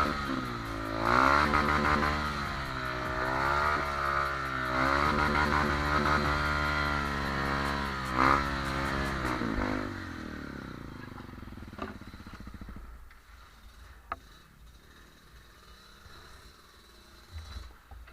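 Off-road trail motorcycle engine revving up and down again and again, then dying away about ten seconds in, leaving a quieter stretch with a few sharp clicks.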